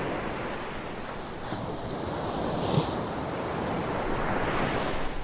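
Steady rushing noise like surf washing on a shore, slowly growing louder through the second half.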